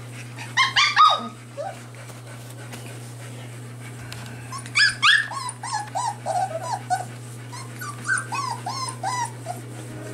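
Young golden retriever puppies giving short, high-pitched little barks: a few about half a second in, then a long run of them from about four and a half seconds to nine and a half seconds.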